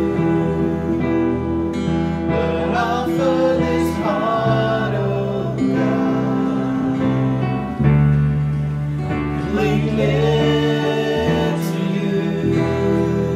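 Worship-band music in an instrumental passage between sung lines: sustained chords with guitar, and a few gliding melodic phrases over them.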